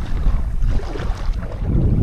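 Wind buffeting an action camera's microphone as a loud, uneven low rumble, over the wash of sea surf on a beach.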